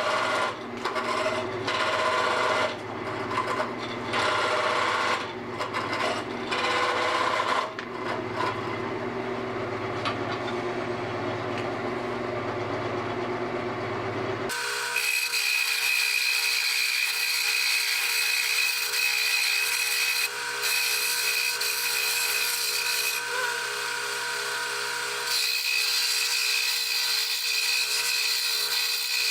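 Wood lathe running while a turning tool cuts into the spinning wood of a candlestick in repeated uneven passes, over the motor's steady hum. About halfway the sound changes abruptly to a steadier, higher hiss.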